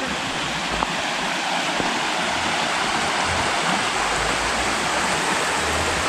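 Water of a woodland stream rushing over rocks, a steady, even rush.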